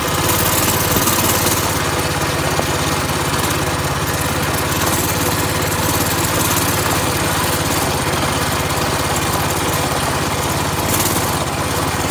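Mini bike's small engine running steadily while riding along at an even speed.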